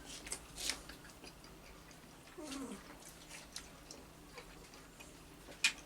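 Quiet eating noises: scattered soft clicks and mouth sounds, with one short falling voice-like sound about two and a half seconds in and a sharper click near the end.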